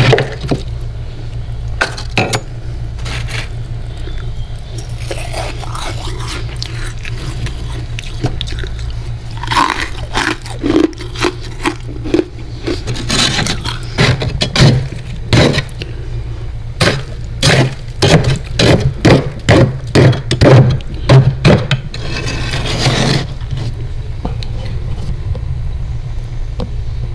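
A metal spoon scraping and digging into thick freezer frost, with a run of quick, crisp scrapes about two a second through the middle, over a steady low hum.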